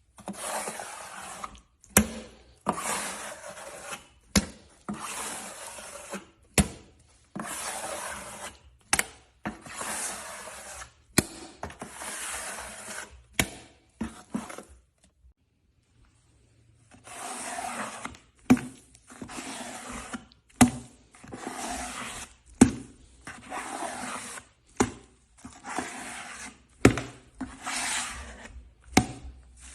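Repeated crackling, scraping strokes, each about a second long and opening with a sharp click, with a pause of about two seconds partway through.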